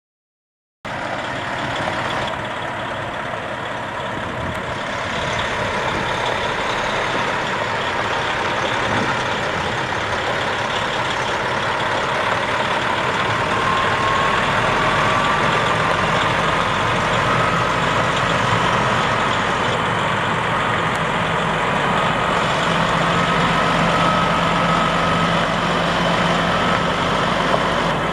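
Detroit Diesel Series 60 12.7-litre inline-six diesel engine of a Freightliner FLD120 tri-axle dump truck running as the truck drives. The sound starts suddenly about a second in, and a thin whine rises slowly in pitch through the second half.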